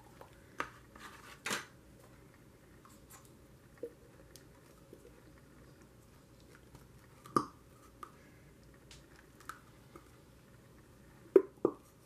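Scattered small clicks and taps from handling a plastic craft glue bottle and working at its cap and nozzle, with a sharper click about seven seconds in and two quick ones near the end.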